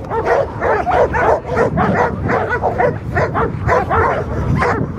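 Pit bull-type dog barking rapidly and without pause, about four barks a second, as it lunges and strains against its leash.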